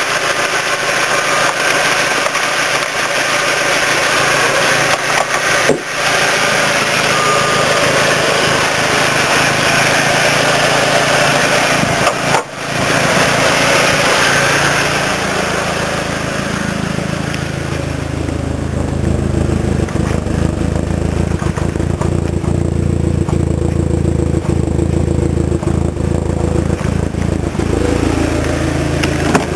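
Turbocharged car engine running loud, with a hissing, whirring sound at first. From about sixteen seconds in, a deeper steady hum takes over.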